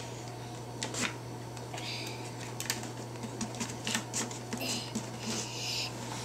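Scattered small clicks and short papery rustles as paper picture cutouts are handled and shifted about in a cardboard puppet theatre, over a steady low hum.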